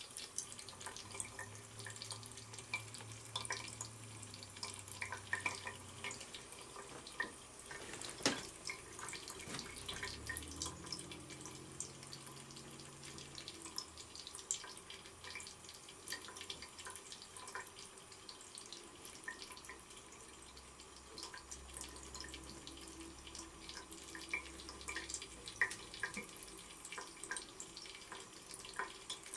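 Water running from a tap into a sink, a steady stream with irregular small splashes and drips. One sharp knock about eight seconds in.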